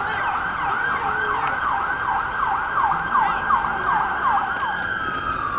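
Emergency-vehicle siren sweeping up and down in pitch about three times a second, then near the end holding a high note and sliding slowly down.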